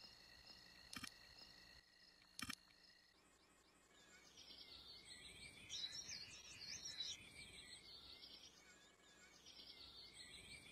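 Faint outdoor nature ambience: cricket-like chirps about every second and a half over a steady high ring, giving way about three seconds in to soft bird chirps.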